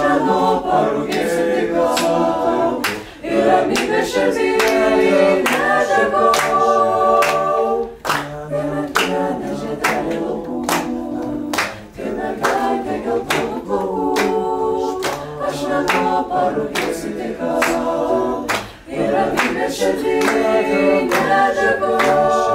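Mixed-voice youth choir of teenage boys and girls singing a cappella, with short breaks between phrases every few seconds.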